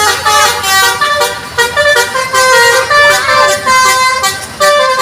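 Bus 'telolet' musical air horns playing short melodies, held notes changing in steps, with more than one horn sounding at once.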